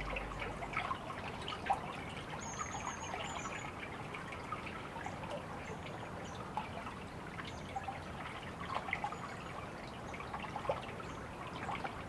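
Water trickling and dripping like a small brook, an even wash dotted with small splashes and ticks. A few faint, short high chirps come through, the clearest about two and a half seconds in.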